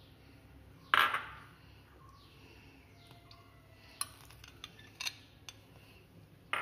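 A steel spoon and a glass bowl clinking against a steel mixer jar while curd is scraped out of the bowl. There is one ringing clink about a second in, then a few light taps and scrapes of the spoon near the end.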